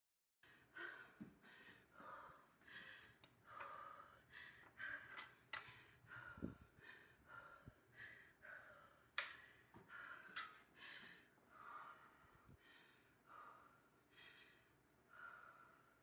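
A person panting, quick and hard, out of breath after running a mile, with a sharp click about nine seconds in.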